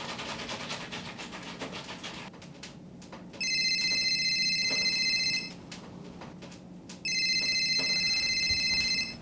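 VTech cordless home phone ringing: two electronic rings, each about two seconds long and about a second and a half apart, each a steady high tone of several pitches together.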